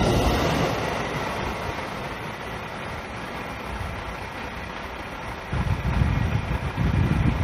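JR Tokai 313 series electric train running away from the platform, its rumble fading steadily as the rear car passes and the train draws off into the distance. From about five and a half seconds in, gusts of wind buffet the microphone.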